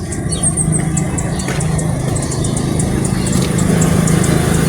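An engine running steadily with a low, even drone, with faint high ticks over it.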